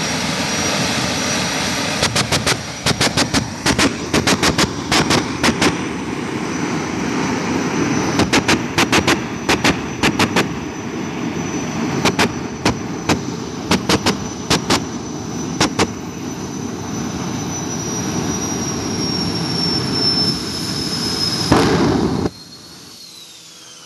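Jet car's turbine engine running loud with a steady high whine, broken by runs of sharp bangs in quick succession. The whine sags slightly near the end, then the sound cuts off suddenly.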